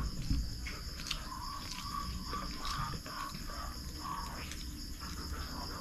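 Crickets chirping steadily in the night background, with a few faint clicks from eating by hand off a plate.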